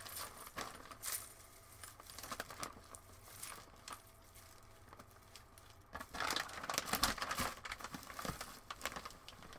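Crinkling and rustling as costume pieces and plastic storage bags are handled and packed, with scattered light clicks. It is busiest about six to eight seconds in.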